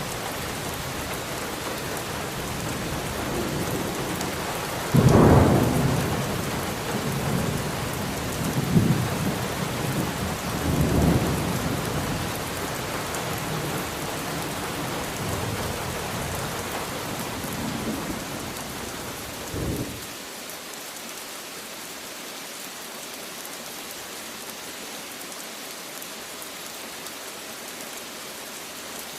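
Steady rain falling, with thunder: a sudden loud clap about five seconds in, then more rumbles around nine and eleven seconds and a last short one near twenty seconds, after which only the rain hiss goes on.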